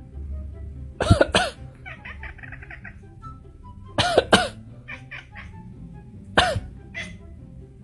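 Coughing in short bursts, mostly in pairs, from a person and a pet cat copying the cough: loud double coughs about a second in, four seconds in and six and a half seconds in, with quicker, fainter hacking pulses between them. Soft background music underneath.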